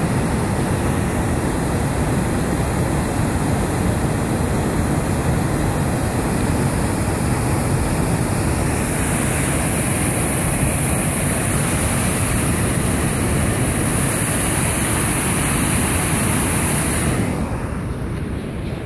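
Steady, loud rush of turbulent water churning in the outflow below a dam. It eases off a little near the end.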